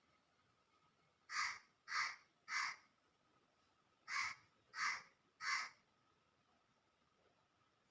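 A bird calling in two sets of three short, harsh calls, each call about half a second apart.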